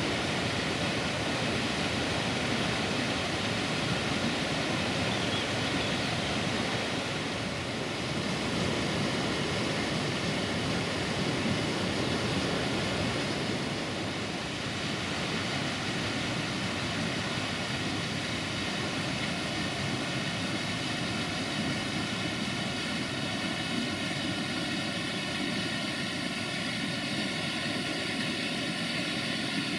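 The Vadu Crișului waterfall: a steady, even rush of falling water.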